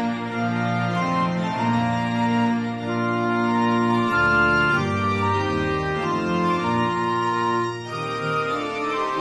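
Music of held organ chords, moving to a new chord every second or so.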